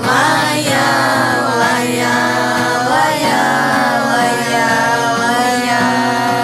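A man, a woman and a boy singing a wordless melody together into microphones over a steady acoustic guitar accompaniment. The voices come in strongly at once, with sliding and long-held notes.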